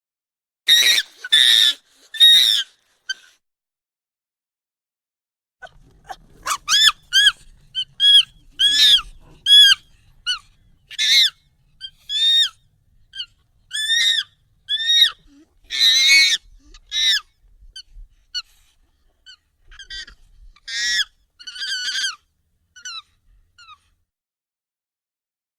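Monkey calls, sped up and pitched high in a nightcore edit: three loud calls near the start, a pause of a few seconds, then a long run of short arching squeaks, about one a second.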